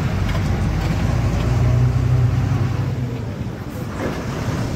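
A lorry's diesel engine running as it drives, heard from inside the cab as a low, steady rumble. It swells about two seconds in and eases off a little after three.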